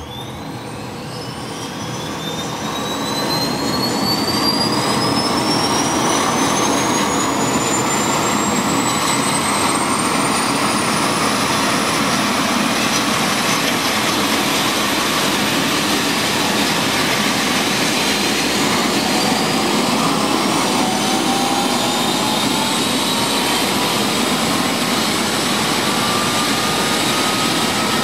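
Eurocopter EC135 helicopter starting up: the twin turbine engines spool up with a whine that climbs steadily in pitch while the rotor spins up, the sound growing loud over the first few seconds and then holding steady. A second, lower rising whine joins about two-thirds of the way through.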